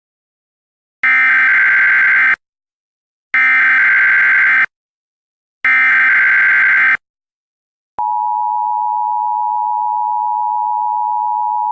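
Emergency Alert System tones: three short screeching bursts of the SAME data header, each a little over a second long and a second apart. About eight seconds in, the steady two-tone EAS attention signal starts and holds.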